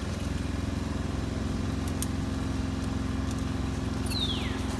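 Steady low engine hum, like a motor vehicle running nearby. Near the end comes one short high squeal that falls steeply in pitch.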